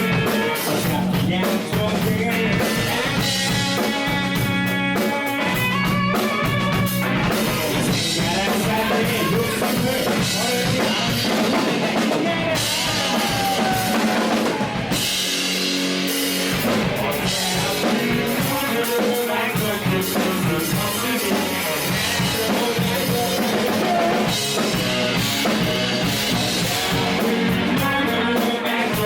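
Live rock band playing, with a drum kit keeping a steady beat.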